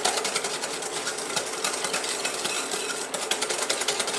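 Wire whisk beating egg yolks and sugar by hand in a glass bowl, its wires clicking rapidly and evenly against the glass as air is whipped into the yolks to lighten them.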